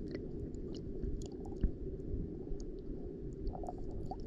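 Muffled underwater ambience picked up by a submerged camera in shallow sea water: a steady low rush of moving water with scattered faint clicks, and one soft knock about a second and a half in.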